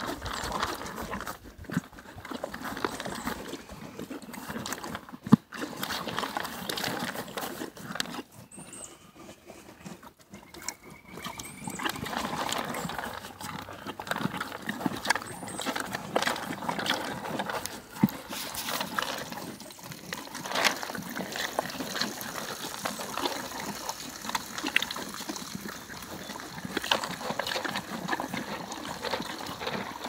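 Horse eating feed pellets from a black feed tub: steady crunching and chewing, with pellets rattling and scraping as his muzzle works through them. There is one sharp knock about five seconds in, and a quieter spell a few seconds later.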